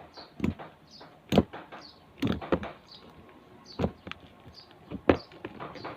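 Homemade slime being handled and pressed into a container, making scattered sticky smacks and clicks. The slime has activator clumping in it, which she suspects means it is overactivated.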